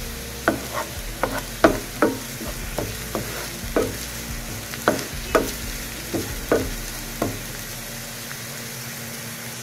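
Ginger-garlic and sliced green chillies sizzling in hot oil in a nonstick frying pan while a spatula stirs them, tapping and scraping the pan about twice a second. The stirring stops about seven seconds in, leaving the steady sizzle.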